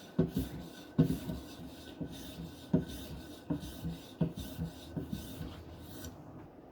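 Knife blade drawn in quick, even strokes over a hard polymer strop charged with diamond emulsion, a dry scraping rasp with light knocks on each pass. The strokes stop about six seconds in.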